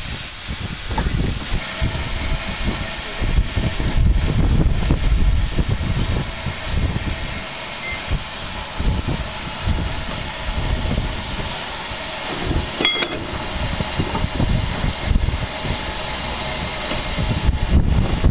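Steam locomotive hissing steam, with wind buffeting the microphone in gusts and a short sharp click about 13 seconds in.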